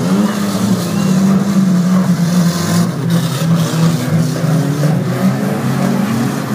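Engines of several demolition derby cars running and revving at once, their overlapping drones sliding up and down in pitch.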